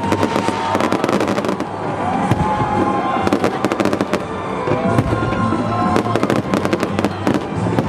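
Stadium fireworks going off in rapid crackling bangs, with music playing underneath.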